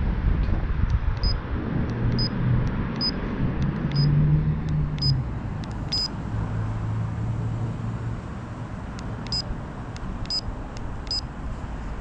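Bicycle speedometer beeping as its buttons are pressed while it is being set up: about nine short, high beeps, some in quick pairs, spaced unevenly over a low background rumble.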